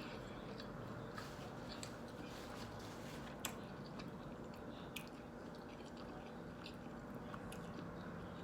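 A person chewing a bite of breakfast sandwich close to the microphone, with soft wet mouth clicks and smacks.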